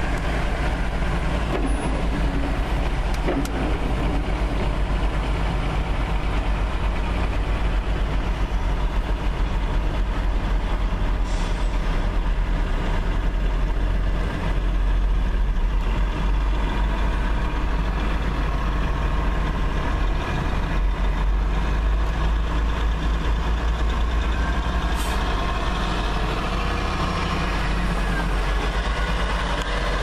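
Vehicle engine running with a steady low rumble, heard from inside the cab.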